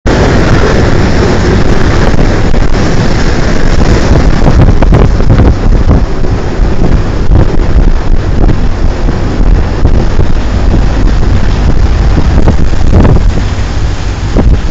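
Strong wind buffeting a phone's microphone, over the rushing of rough sea waves around a ship.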